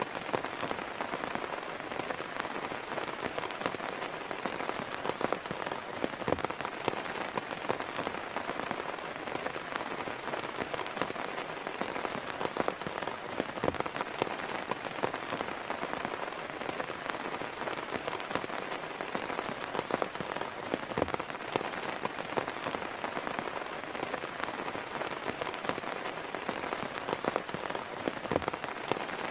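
Heavy rain falling steadily, with many separate drops striking sharply close by.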